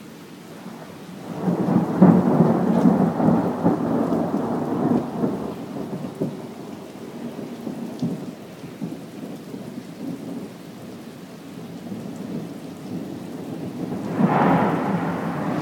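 Thunder over steady rain. A loud peal builds about a second and a half in and rolls on for several seconds before fading to a low rumble. A second peal breaks in suddenly near the end.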